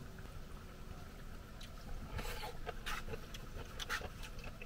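Faint eating sounds: scattered small clicks and smacks of rehydrated seaweed being picked up with chopsticks and chewed, mostly in the second half.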